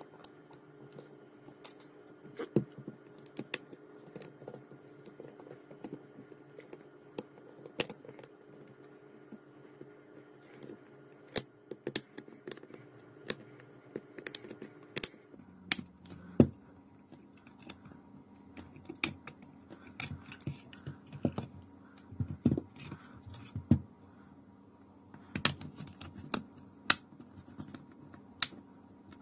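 Back cover of a Samsung Galaxy Tab 4 being pried off its frame with a plastic pick and a metal spudger: irregular sharp clicks and scrapes as the tools work along the edge and the cover's clips come free.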